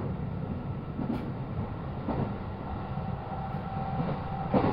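Cabin sound of a JR 223 series electric train running: a steady low rumble with a few sharp clacks of wheels over rail joints, the loudest near the end, and a steady whine that comes in near the end.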